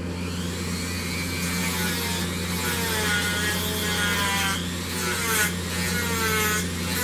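Dremel rotary tool running with a small sanding drum, rounding over the corners of a wooden mug handle; its high whine wavers in pitch as the drum bears on the wood.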